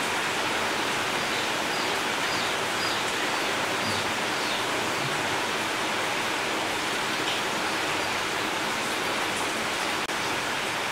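A steady, even hiss of noise, with a few faint, short high chirps about two to four seconds in.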